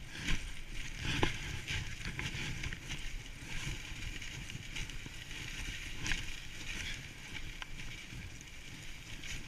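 Dog sled moving along a packed snow trail behind a running husky team: a steady hiss of the runners on snow over a low rumble, broken by a few sharp clicks and knocks, the loudest about a second in and near six seconds in.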